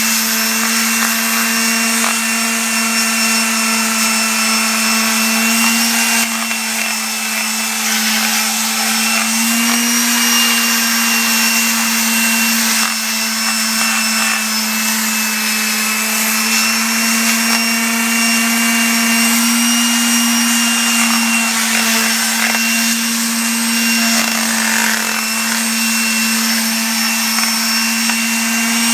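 Electric palm sander running steadily with coarse 36-grit paper against the face of a cast-iron brake rotor, a constant motor hum under the scratchy rasp of the paper: the rotor's scored braking surface is being sanded smooth.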